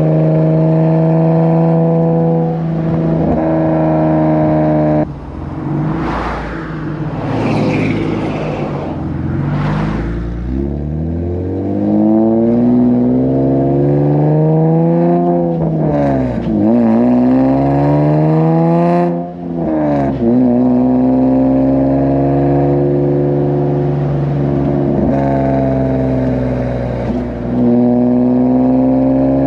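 Nissan 370Z's 3.7-litre V6 with PPE headers. It holds a steady drone, then drops off suddenly about five seconds in. From there it climbs in pitch under acceleration, falling sharply twice at the gear changes, before settling back into a steady cruise.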